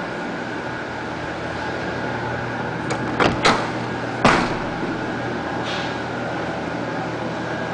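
A door being opened: two quick clicks of the latch, then a louder knock about a second later as it swings open, over a steady hum.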